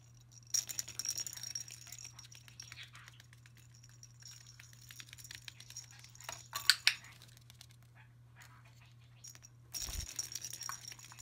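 Small plastic rattle ball clicking and jingling as it is handled and rolled on a wooden floor, with sharp clicks around the middle. Near the end it drops through a toy basketball hoop with a low thud and rattles as it rolls away.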